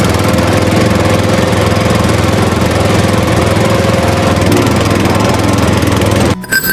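A small motor running steadily at a constant speed, cut off abruptly near the end.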